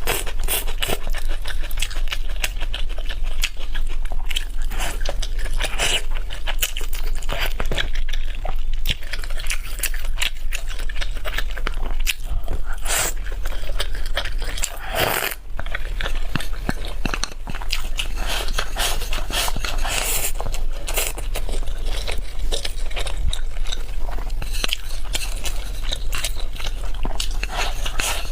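Close-miked eating: a person biting and chewing food, with many irregular wet clicks and crunches that keep going without a break.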